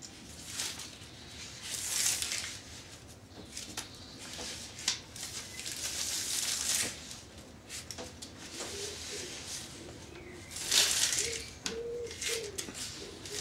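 Rustling and handling noise in irregular bursts as hands work a tie around a grafted apple stem. From about two-thirds in, a pigeon coos repeatedly in the background.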